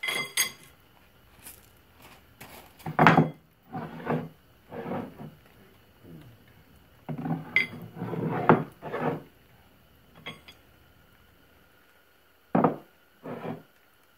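Intermittent metal clanking and scraping as short steel bars are handled on plywood beneath a heavy cast-iron lathe part hanging from a hand chain hoist, beginning with a ringing metallic clink.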